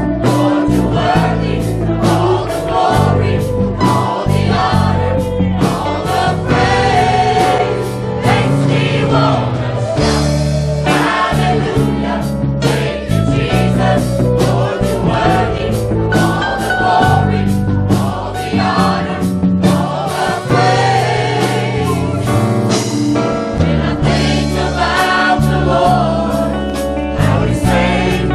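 Live gospel worship music: a choir singing over a band with bass and a steady drum beat.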